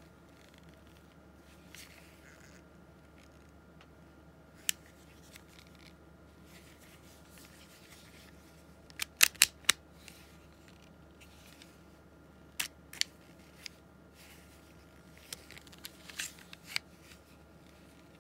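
Sharp mechanical clicks from a Tanaka Colt Government .380 Auto replica pistol being handled and worked. There is a single click, then a quick run of four clicks about halfway through, then scattered single clicks, all over a faint steady hum.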